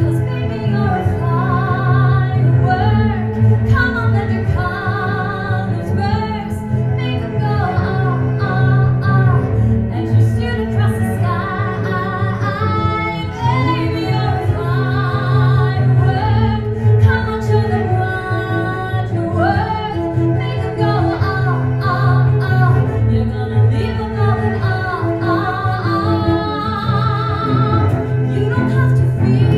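Woman singing a pop melody into a microphone, accompanied by a bowed cello playing a steady low line.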